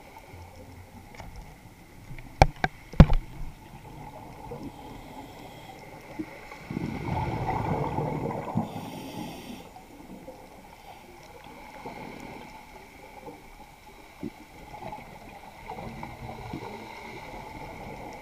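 Scuba diver's breathing heard underwater through the camera housing: a burst of exhaled bubbles rumbling for about three seconds in the middle, over a steady low water hiss. Three sharp clicks come a few seconds earlier, the loudest sounds.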